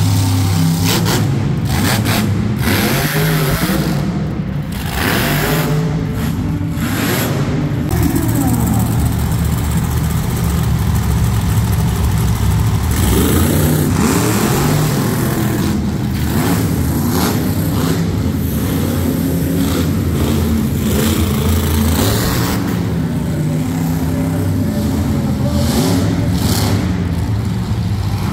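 Monster truck engines running loud, revving up and down in rising and falling surges a few times.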